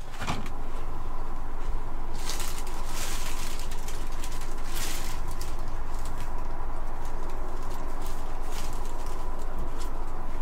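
Tissue paper rustling and crinkling in a few short bursts as the sheet is handled and lifted, over a steady low hum.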